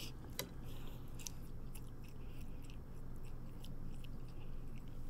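Close-miked chewing of a mouthful of spaghetti, with scattered small mouth clicks over a steady low hum.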